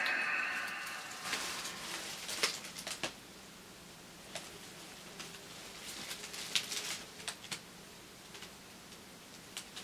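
Quiet small-room tone with a scattering of faint clicks and light rustles, about a dozen, spread unevenly through the stretch.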